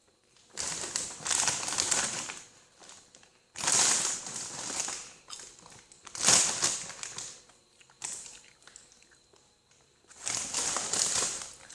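A plastic bag of sweet popcorn crinkling as it is handled, in about five separate bursts with short pauses between them.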